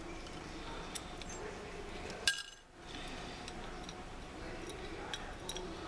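Small metal hardware, bolts and washers, clinking and tapping as it is handled during assembly: a few light clicks, with one sharper clink about two seconds in that rings briefly.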